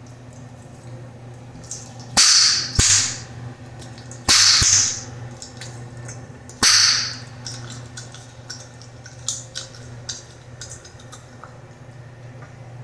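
Bubblegum snapped and popped in the mouth: a handful of loud, sharp pops about two to seven seconds in, each with a short hiss of air, then fainter snapping clicks.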